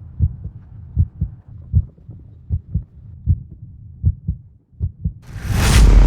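Heartbeat sound effect: pairs of low thumps, lub-dub, about one beat every three-quarters of a second. About five seconds in, a loud rushing whoosh swells up over it.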